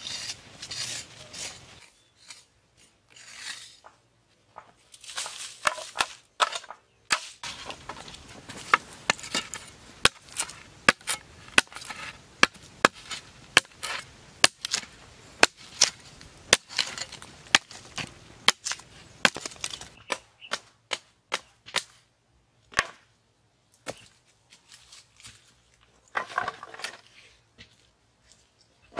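Blade chopping at a wooden stake: a long run of sharp knocks, about one and a half a second, that turns to scattered single strikes later on.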